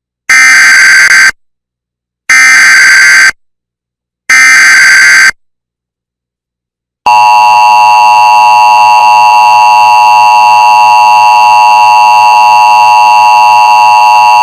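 Emergency Alert System tones: three one-second bursts of SAME header data, about two seconds apart, then after a short gap the steady two-tone EAS attention signal, a loud continuous buzz, starting about seven seconds in. Together they open a new National Weather Service severe thunderstorm warning.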